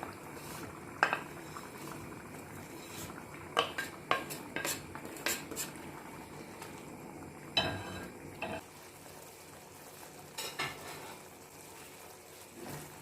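A spoon knocking and scraping against a pan as shallow-fried paneer cubes are added to the gravy and stirred in. The clinks come irregularly over a faint background of the simmering gravy.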